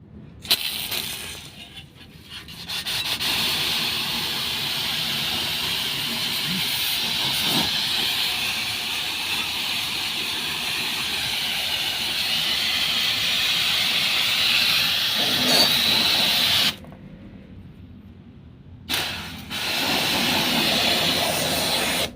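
High-pressure water spray hissing steadily while an air conditioner unit is washed. It cuts off suddenly for about two seconds, then starts again.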